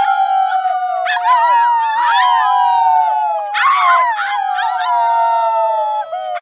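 A group of children and adults howling like wolves together. Several long, overlapping howls slowly fall in pitch, and fresh howls join in about every second or so.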